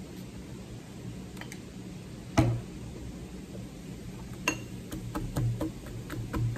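A metal straw and spoon clinking against a glass jar. There is a sharp knock a little over two seconds in and a ringing clink about four and a half seconds in, then a run of small quick clicks near the end, over a low steady hum.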